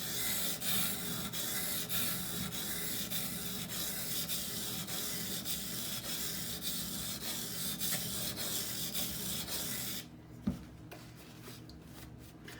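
Knife blade (Benchmade Bugout, CPM-20CV steel) scraping back and forth on a wet, coarse Norton 220-grit water stone, a steady gritty grinding made of quick repeated strokes while the edge is worked to raise a burr. The grinding stops about ten seconds in, and a single light knock follows.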